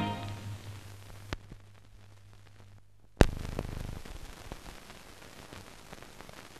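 Music dies away into the hiss and low hum of an old film soundtrack, with scattered clicks. The hum stops shortly before a single loud pop about three seconds in, and crackle and hiss follow it.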